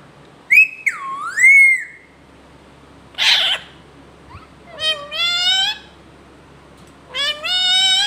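Alexandrine parakeet calling: a whistled note that dips and rises in pitch about half a second in, a short noisy burst around three seconds, then two rising whistled calls near five and seven seconds.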